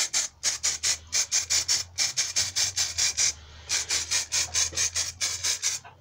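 Aerosol can of peelable rubber coating (plastic dip) being worked: a fast, even rhythm of short noisy strokes, about six a second, in runs broken by brief pauses.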